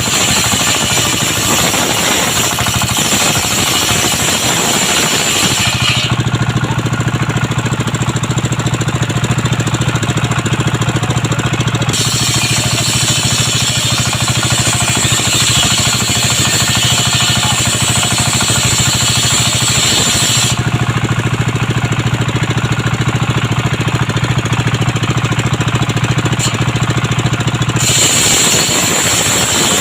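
Circular saw machine running steadily while sawing coconut wood. The sound switches abruptly twice, at about 6 s and about 20 s, each time for several seconds, to a lower hum without the high hiss and whine.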